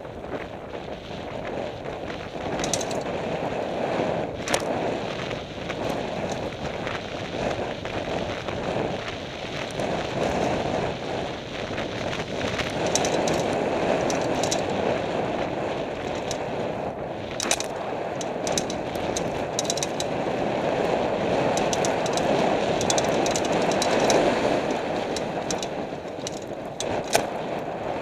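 Downhill mountain bike running fast over a dry dirt trail: a steady rush of wind on the microphone and tyre noise, with the bike rattling and clattering over the bumps and a few sharp knocks.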